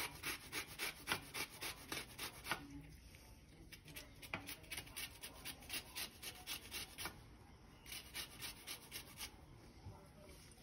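Lemon peel scraped up and down a flat metal hand grater to make zest: quick rasping strokes about three a second, in a few runs with short pauses between.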